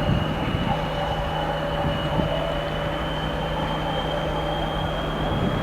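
TEP70 diesel locomotive's 5D49 V16 diesel under power: a steady high turbocharger whistle climbs slightly in pitch as the engine is notched up. Beneath it runs the low, even drone of the diesel.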